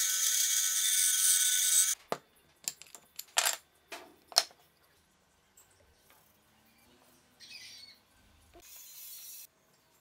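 Band saw cutting through a wooden board, a steady noisy whine that cuts off abruptly about two seconds in. Then several sharp wooden knocks as cut pieces are handled on a workbench.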